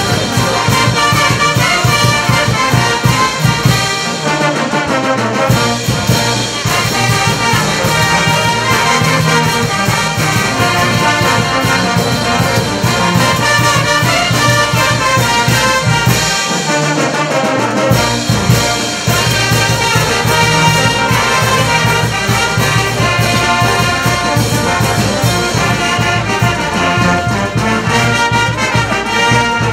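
Andean brass band playing: sousaphones, trumpets and trombones over a steady beat of bass drum, snare and cymbals. The deep bass drops out briefly twice, about four seconds in and again after about sixteen seconds.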